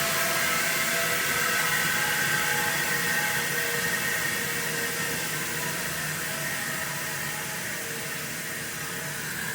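Compressed air from an 80-gallon compressor tank venting through a 3/4-inch Alwitco pneumatic muffler: a steady, muffled hiss that slowly gets quieter as the tank empties.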